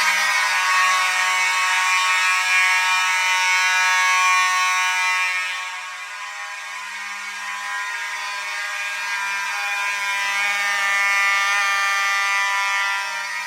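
Vintage Simplex fire alarm horns (2901-series horns and a 4903 horn strobe) all sounding together after the pull station is pulled, one continuous, unbroken blare.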